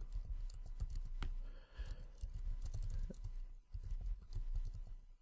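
Typing on a computer keyboard: an uneven run of key clicks, broken by a few short pauses.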